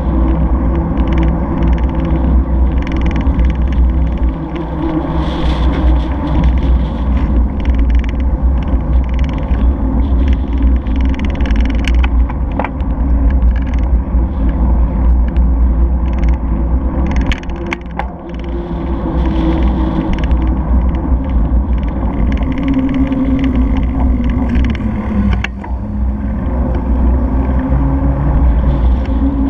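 Steady low rumble of wind buffeting and road vibration on a bicycle-mounted camera's microphone while riding, mixed with car traffic; near the end an engine note dips and rises again.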